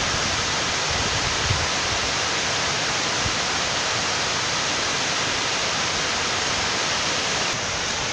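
Water overflowing a dam's concrete spillway, a steady, even rushing sound of a wide sheet of water pouring down the slope.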